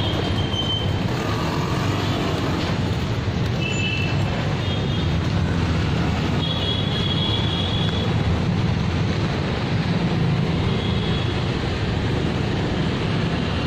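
Steady low rumble of street traffic, with a few short high-pitched tones over it.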